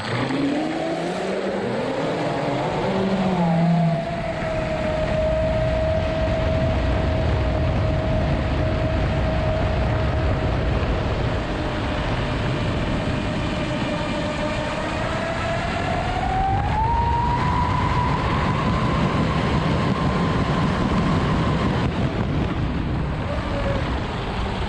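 Pro Boat Zelos 36 RC catamaran's twin brushless electric motors whining under power as the boat accelerates to about 30 mph, the pitch rising over the first few seconds, holding steady, then climbing again partway through and dipping near the end. A steady rush of water against the hull runs beneath the whine.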